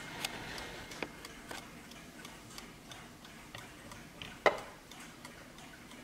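Warmink mantel clock ticking steadily, with one louder knock about four and a half seconds in.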